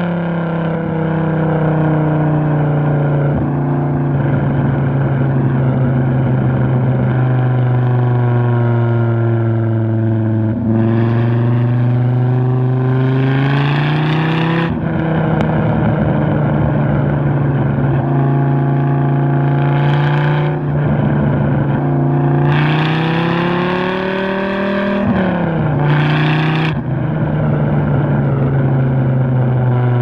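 Modified Gen 2 Dodge Viper GTS's V10, cammed and with an aftermarket exhaust, cruising at steady revs, then pulling hard with its pitch climbing, several times. Each pull ends in a sudden drop in pitch.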